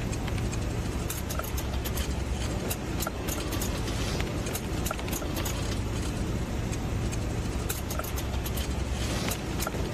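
BMW car running with a low rumble, overlaid by many sharp, irregular metallic clicks and scraping from underneath, a metal-rubbing sound like coins dropping on the floor. It is the abnormal noise of a faulty driveshaft.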